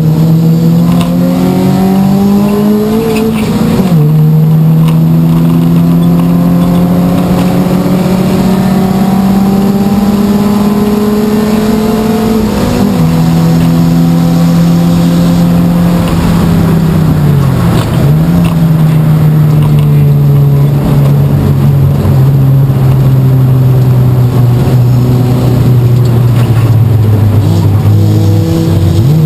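Race car engine running hard without a break. Its revs climb slowly, then drop sharply four times: about four seconds in, near the middle, a brief dip a little later, and near the end.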